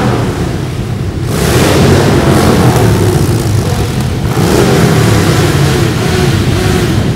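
A stream of motorcycles and trikes, a mix of sports bikes and cruisers, riding past close by with their engines running loudly, each passing bike swelling the sound; a new surge comes about a second in and another about four seconds in.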